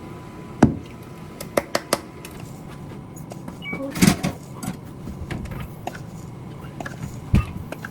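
Kitchen handling noises: scattered knocks and clicks of utensils and containers being set down and moved, with the loudest clatter about halfway through and a thump near the end.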